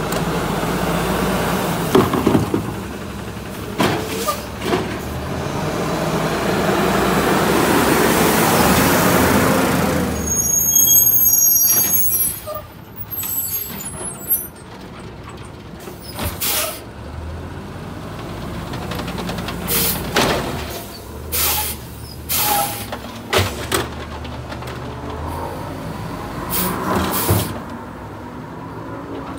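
Refurbished 2009 Autocar dual-axle automated side-loader garbage truck working the curb: the engine runs up over the first ten seconds while the hydraulic arm dumps a cart, with a few knocks. It is followed by high brake squeals and, later, several short sharp hisses of the air brakes as the truck moves on to the next carts.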